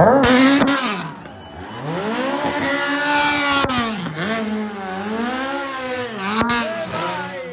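Rally car engine revving hard, its pitch climbing and falling again and again as the car spins doughnuts, with the rear tyres spinning and screeching on tarmac.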